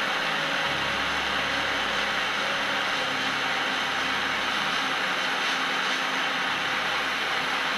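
Propane hand torch burning with a steady, even hiss while a brass rifle case is heated in its flame for annealing. A faint low hum comes and goes underneath.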